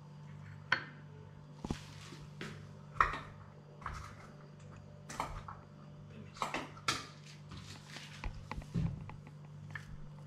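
Scattered light clicks and scrapes of a spoon on a plate over a steady low hum.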